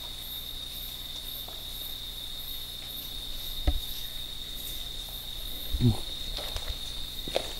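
Steady night chorus of crickets, a continuous high trill with a fainter, faster pulsing insect call above it. Two dull thumps, about four and six seconds in, stand out over the chorus.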